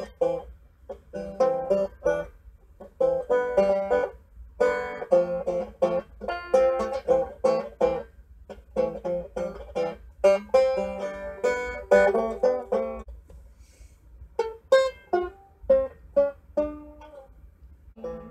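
Banjo played inside a car's cabin: an instrumental passage of plucked and strummed chords in a steady rhythm, thinning to sparser single picked notes near the end.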